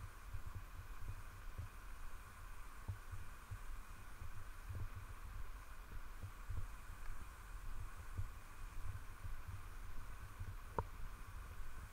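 Low, irregular thumps and rumble on a handheld action camera's microphone as it is carried along at walking pace, over a faint steady hiss. One short click near the end.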